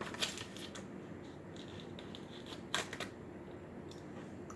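A few faint, sharp clicks and light rustling of plastic packaging being handled and opened, with a low steady room background.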